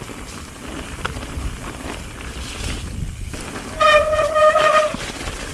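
Mountain bike rolling over a snowy trail, tyre and trail noise, with a loud disc-brake squeal of about a second near the end as the brakes are applied in the wet.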